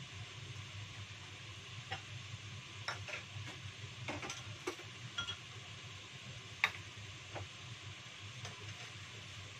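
Wok of boiling water steaming under a domed metal lid on a gas burner: a steady low hiss and hum with scattered light clicks and ticks, the sharpest about two thirds of the way in.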